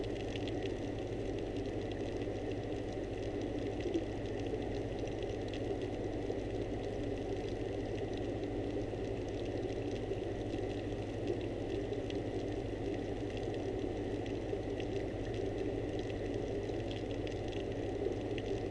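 Steady hum and watery hiss of aquarium pump and filter equipment heard underwater, with a thin high whine and a few faint clicks.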